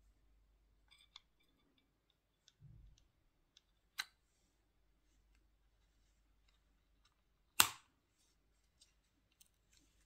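Light clicks and ticks of a CR2450 coin-cell battery and the plastic case of a Ford keyless remote being handled. A low thud comes near the third second, and one sharp, much louder click comes about three-quarters of the way through as the new battery is pressed into its holder.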